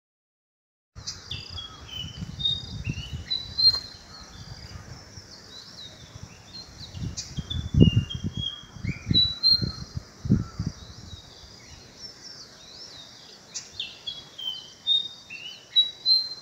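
Fantail flycatcher singing: a run of short, clear whistled notes, some rising and some falling, starting about a second in. Low thumps and rumble come and go underneath, the loudest about eight seconds in.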